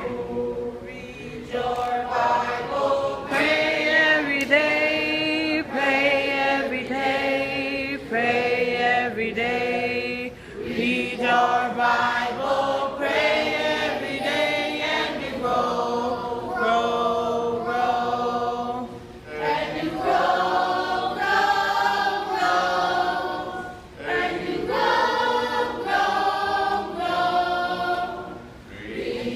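A group of children singing a song together, unaccompanied, in phrases broken by short pauses.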